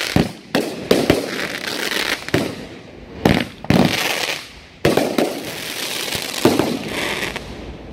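Aerial fireworks going off: a quick, irregular string of about a dozen sharp bangs as shells burst, with a steady hiss of noise between the reports.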